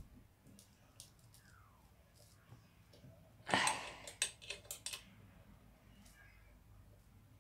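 Stunt scooter being handled and its parts knocked about: faint ticks, then midway a short rustle followed by a quick run of sharp metallic clicks and knocks.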